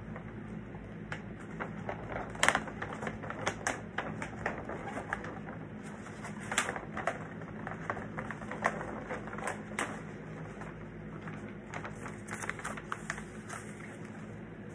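Poster wrapping crinkling as it is handled: irregular sharp crackles and clicks, loudest about two and a half seconds in and a few times around the middle, over a steady low hum.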